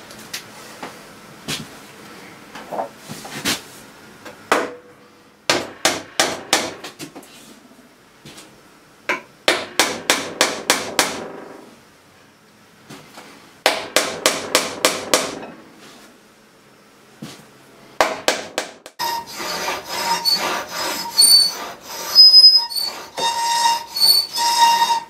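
Bursts of quick hammer taps, six to eight strikes at a time, driving a wooden dowel into a hole through a timber frame joint. About three-quarters of the way through, this gives way to a run of scraping strokes as a marking gauge's pins score along a board.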